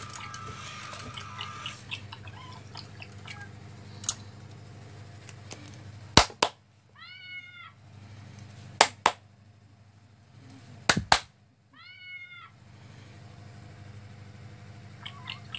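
Pairs of sharp claps come three times, and two of them are each answered about a second later by a short recorded cat meow, rising then falling in pitch, played through a smartphone speaker by the LEGO Boost app as the robot cat's 'heard a sound' response. A low steady hum runs underneath.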